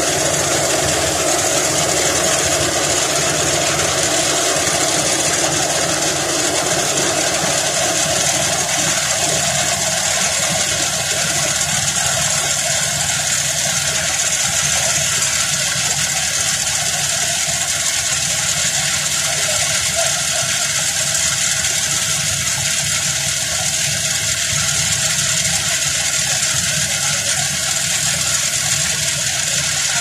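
Combine harvester running steadily as it unloads rice grain through its auger: a loud, even machine drone with a steady hiss.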